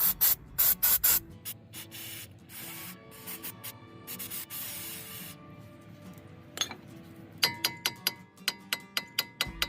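Aerosol can of rust-removing penetrant spraying in short hissing bursts, then two longer sprays, loosening a brake disc rotor seized onto the hub. Near the end comes a quick run of light, ringing metallic taps, about three a second.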